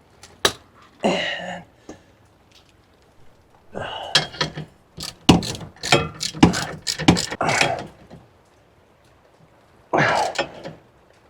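Hand tools clicking and knocking on metal as a bolt is threaded and tightened into an air tank's old gauge port to plug it; the clicks come in an irregular cluster through the middle.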